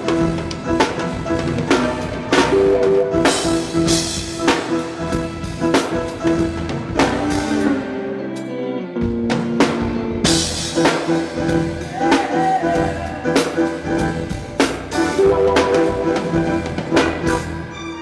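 Live band playing an instrumental: a drum kit with snare, bass drum and cymbal crashes over held keyboard chords. The drums drop out about eight seconds in and come back with a crash about two seconds later.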